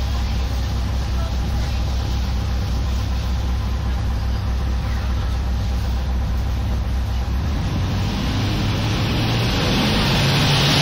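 Thames Clipper river boat's engines running steadily with a low hum. Near the end the engine note rises and a louder rushing noise builds as the boat speeds up.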